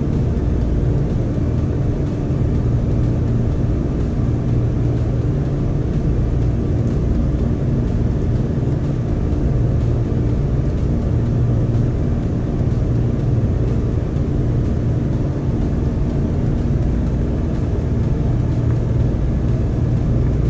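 A steady low mechanical hum, holding the same pitch and level throughout, like a running engine or motor.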